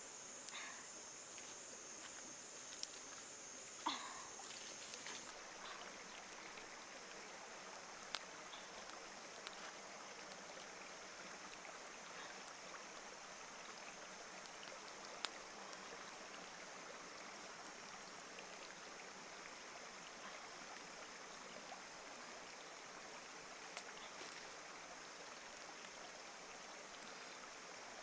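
Faint steady rush of running water from a stream, with a high insect drone that fades about five seconds in. A few isolated sharp clicks.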